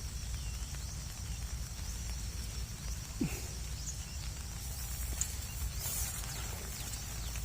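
Wind buffeting the microphone as a steady low rumble, over a faint high hiss.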